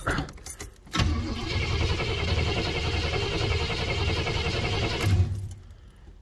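1979 Chevrolet Monte Carlo's carbureted engine cranking on the starter for about four seconds on a cold start, after the gas pedal has been pumped three times. It ends in a short louder burst and does not keep running.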